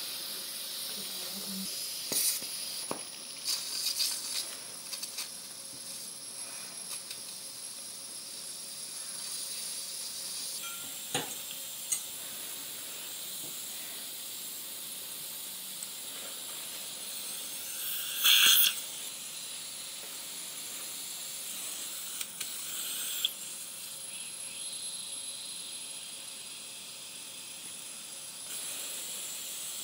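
Dental surgical suction hissing steadily in the mouth during suturing, with a few brief louder bursts, the loudest about two-thirds of the way through.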